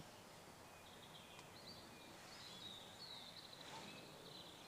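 Near-silent woodland with faint, high-pitched birdsong: a small bird warbling and chirping in the trees.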